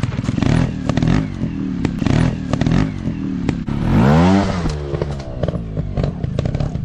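Dirt bike engines running off-road, with one revving up sharply about four seconds in and dropping back. Short clicks and clatter run through it.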